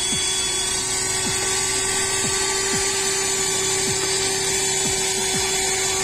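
Tornado Bergmann 12 V, 60 W handheld car vacuum cleaner running at full speed as it sucks up grit from a car floor mat. It gives a steady motor whine over a loud hiss of air rushing through the nozzle.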